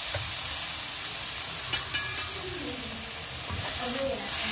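Seasoned, marinade-soaked shredded pork sizzling with a steady hiss as it is stirred and tossed in a hot nonstick pan with chopsticks and a spatula. A few utensil clicks against the pan come a little under two seconds in.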